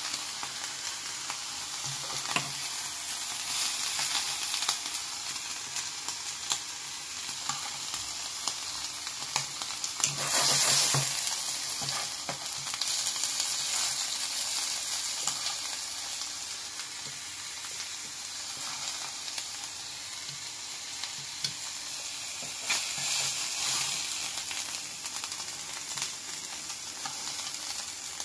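Broccoli florets and garlic sizzling in hot olive oil in a frying pan, a steady hiss with occasional light clicks as they are turned, swelling briefly about ten seconds in.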